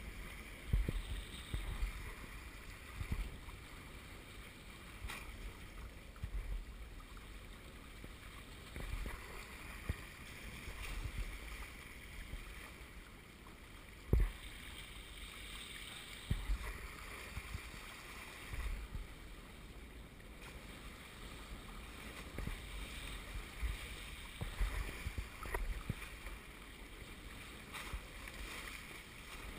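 Water rushing and splashing along the hulls of a small Hobie Wave catamaran under sail, with gusty wind buffeting the microphone. Short knocks come now and then, the sharpest about halfway through.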